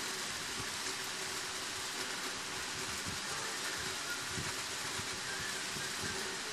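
Steady background hiss with a faint low hum and a few faint, soft low thumps.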